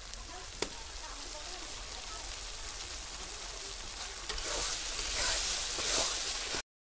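Curry masala of onion, tomato and curry leaves sizzling in oil in a kadai while it is stirred with a spatula, with one sharp knock under a second in. The sizzling grows louder about four seconds in as the masala is turned over, then cuts off just before the end.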